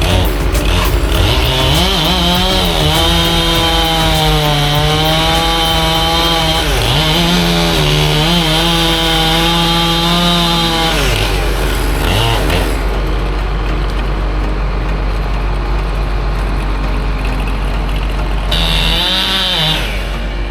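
Chainsaw running and cutting wood, its engine note rising and falling as the throttle is worked for several seconds, then a short burst again near the end, over a steady low drone.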